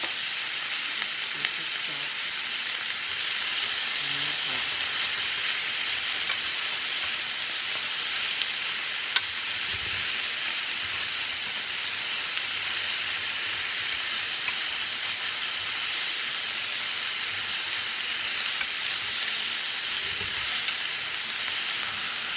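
Sliced vegetables sizzling steadily as they sauté in a hot stainless-steel skillet. A few sharp clicks of the utensil knocking against the pan come through the sizzle while the vegetables are stirred.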